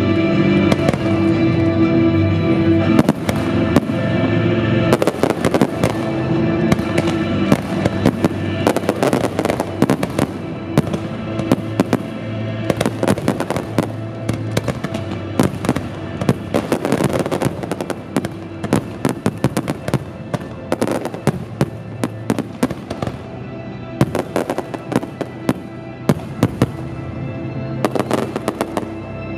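Fireworks display: aerial shells bursting and crackling in rapid succession over recorded music, the bursts coming thick and fast from about three seconds in.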